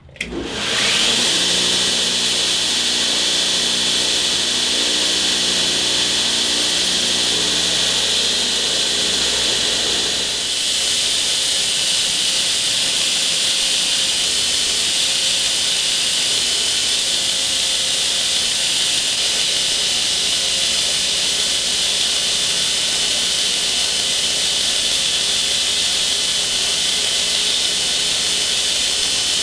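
A power tool starts up abruptly and runs continuously with a loud, steady hiss. A few low hums under the hiss shift about ten seconds in.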